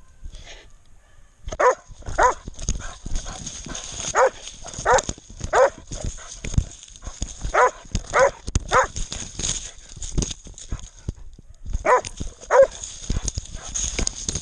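Hunting dog barking in groups of two or three, about ten barks in all, with knocks and rustling throughout.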